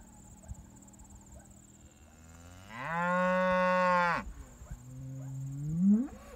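Red Devon cattle mooing: one long, loud moo about three seconds in that rises, holds and then falls, followed by a second, lower moo that swells and rises in pitch near the end.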